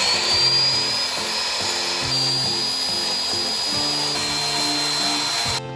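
Power drill running continuously while driving a fastener into the house wall during ledger-board installation; its high motor whine rises as it spins up, holds, steps down slightly twice, and cuts off sharply near the end. Background music plays underneath.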